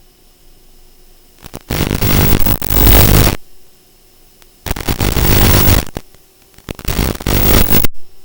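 Three loud bursts of harsh static hiss, each starting and cutting off abruptly, with a faint steady hum in the quiet gaps between them. This is the audio channel of an analog FPV video link recorded by the goggles, where bursts of static are typical of the signal breaking up.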